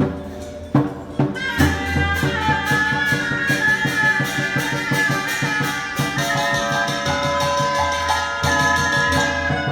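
Chaozhou opera accompaniment ensemble playing live: melody instruments holding long notes over rapid percussion strikes that set in about a second and a half in.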